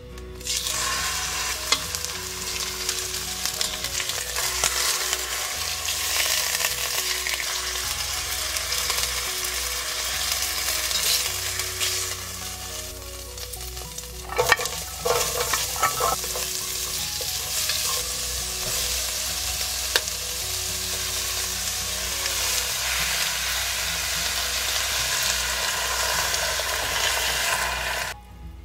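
Beef brisket and oxtail searing in hot olive oil in an enamelled pot: a steady sizzle, with a few louder pops about halfway through, cutting off abruptly near the end.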